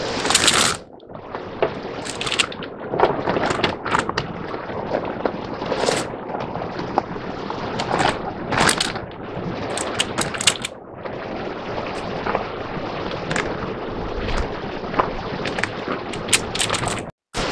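Plastic accordion sewer hose support (a Sidewinder) being stretched out and handled, its sections clattering and rattling in short irregular bursts. Steady rushing creek water runs underneath.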